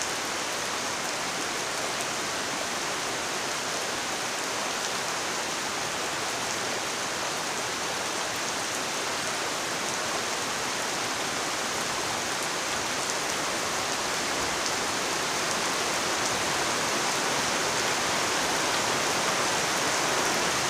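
Heavy rain pouring steadily onto leaves and muddy floodwater. It grows somewhat louder over the last few seconds.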